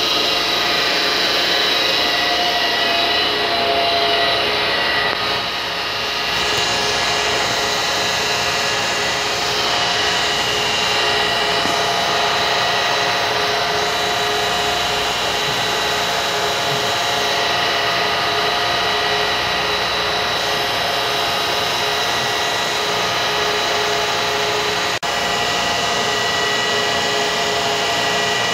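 Edwards E2M80 two-stage rotary vane vacuum pump running: a steady hum with several high whining tones and one faint click about 25 seconds in. By the owner's account the pump churns bubbles in its oil and pulls a poor vacuum.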